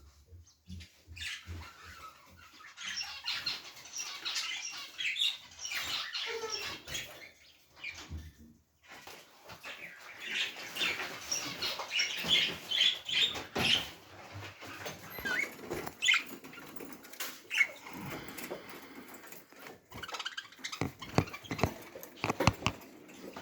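Small pet birds chirping and chattering in dense bursts of short high calls, with scattered clicks and rustling in between.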